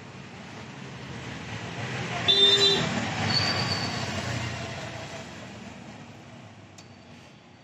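A vehicle passing by, its noise swelling and then fading away, with a short horn toot about two seconds in.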